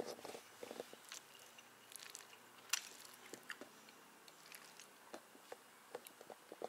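Faint chewing of a mouthful of chicken kottu roti, with scattered small clicks of a fork in the food box; one sharper click just under three seconds in.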